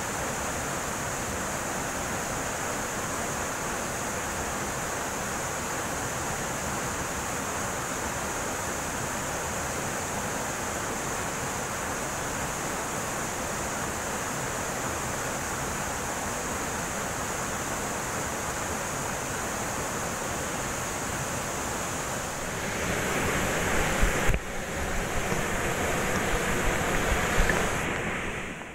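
Steady rush of a waterfall and its white water pouring into a rock pool. Near the end it grows louder, with a few low bumps and rumble as the camera is handled.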